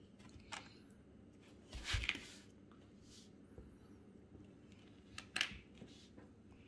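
Small plastic LEGO pieces being handled and pressed together: a few faint, separate clicks and rustles, the loudest about two seconds in with a soft thud, and another sharp click about five and a half seconds in.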